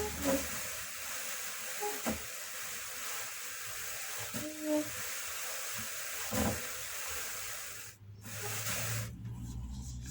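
Steady hissing brush of wool fleece being run through a drum carder, with a few faint squeaks. The hiss stops about eight seconds in, leaving a low hum.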